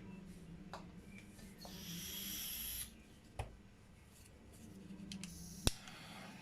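A handheld gas torch being picked up and fired to pop bubbles in wet acrylic paint: knocks from handling, a brief hiss about two seconds in, and a sharp ignition click near the end.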